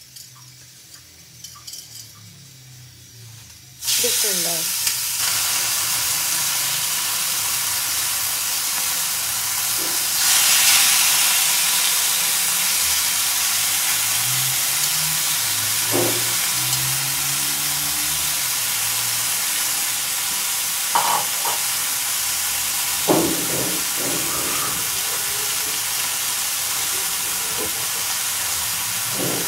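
Marinated chicken steaks sizzling on a hot cast-iron grill pan. The sizzle starts suddenly about four seconds in as the meat goes down, grows louder about ten seconds in as more meat is added, then holds steady, with a few light knocks.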